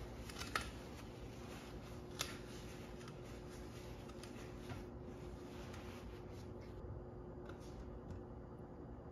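Paper towel rubbing over a plastic bottle and bottles being handled on a countertop: soft rustling with a few light clicks and knocks, the sharpest about half a second and two seconds in, over a faint steady hum.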